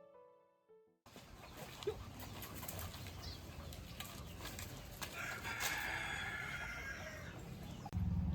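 Solo piano music dies away in the first second. Then outdoor farmyard sound follows, with a rooster crowing about two-thirds of the way in. A loud low rumble starts near the end.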